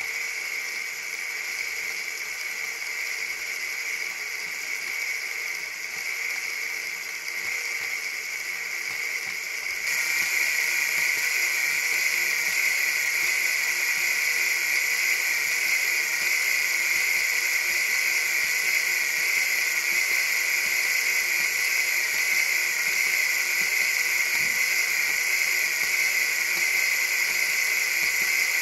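LEGO Technic V6 engine model running, its plastic pistons and crankshaft making a steady whirring rattle that gets louder about ten seconds in.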